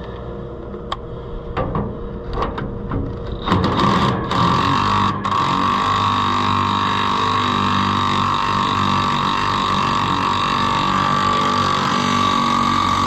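A few metal clicks and knocks, then, about three and a half seconds in, a motor starts and runs at a steady pitch with a hum and a higher whine, until it cuts off abruptly.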